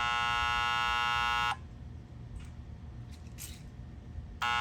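Hoover vacuum cleaner motor on mains power giving a loud, steady electrical buzz. It stops abruptly about one and a half seconds in and starts again abruptly near the end. The owner puts the stopping down to the motor's built-in cutoff.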